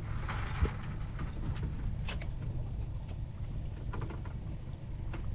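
Wind buffeting the microphone on an open boat: a steady rough rumble, with a couple of dull knocks near the start and a few light taps later.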